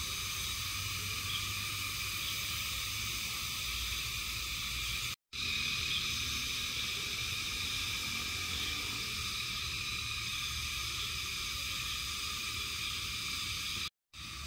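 Steady evening chorus of calling insects and frogs, a dense high-pitched trilling hum, cut off for a moment twice.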